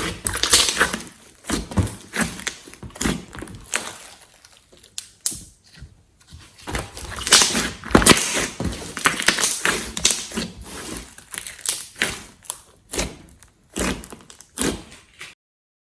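Hands kneading and squeezing slime mixed with clay, giving irregular clusters of sticky squelches, clicks and small pops. It stops abruptly near the end.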